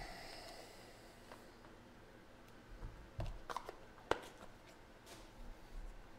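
Hands opening a small hard card box and handling the cards: a soft click and a brief sliding rub as the lid comes off, then a few light clicks and taps as the cards are lifted out.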